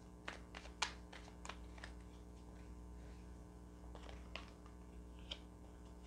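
A deck of tarot cards being shuffled and handled: irregular light clicks and flicks of card edges, most of them in the first two seconds, over a faint steady hum.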